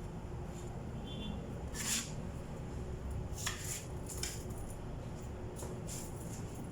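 A few short scrapes and light clicks of a metal putty knife working wood filler on a tabletop, over a steady low background rumble.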